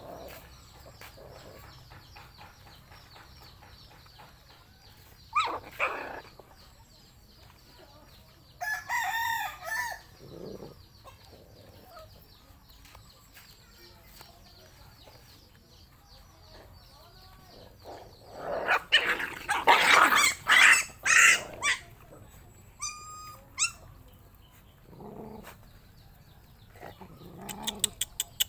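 A mother dog and her puppies eating together from one bowl, with faint chewing and lapping throughout. A rooster crows about nine seconds in, and louder calls come around twenty seconds in.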